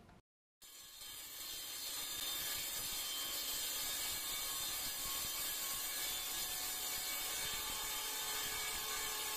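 A woodworking power tool's motor coming up to speed and then running steadily, with an even whir and hiss, after a brief moment of silence.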